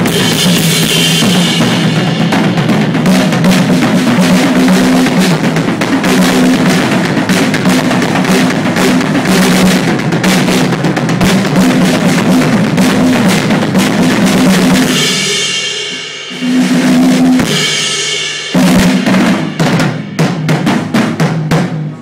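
A drum kit played hard: a fast, continuous pattern of bass drum, snare and cymbals. About fifteen seconds in it breaks into two cymbal crashes and then separate single hits with short gaps between them.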